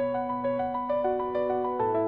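Background music: a piano-like keyboard plays a quick repeating pattern of notes over a held bass note, with the chord changing near the end.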